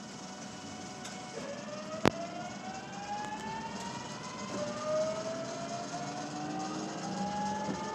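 JR Shikoku 8000 series electric train accelerating, heard from inside the car: its traction motors and inverter give a rising whine in several tones from about a second and a half in. A sharp click comes about two seconds in. A light rattle comes from under the floor, an abnormal noise heard only under this car.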